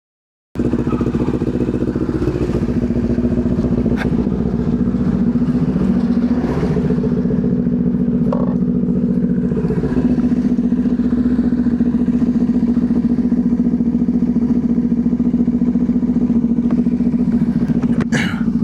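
Motorcycle engine running steadily while riding, a constant low rumble that starts about half a second in.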